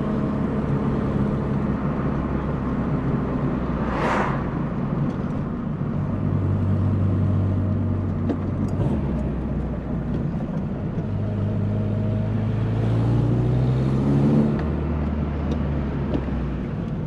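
VW Polo Coupe engine, freshly rebuilt with a new head gasket, cam belt and water pump, driving along. Its note holds, then changes pitch from one gear to the next, and climbs steadily under acceleration for a few seconds in the second half. A brief whoosh comes about four seconds in.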